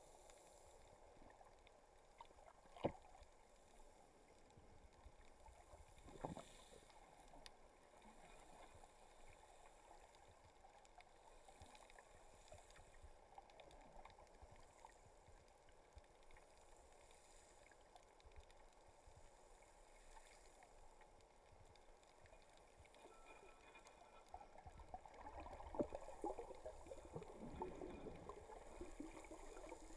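Faint underwater ambience: a low, muffled water noise, with two sharp clicks a few seconds in and the water noise growing louder near the end.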